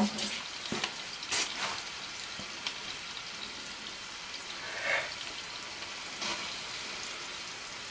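Oil sizzling steadily in a frying pan of onions and green beans, with a few light clicks early on and a brief swell in the sizzle about five seconds in as a corn-flour-coated chicken piece goes into the pan.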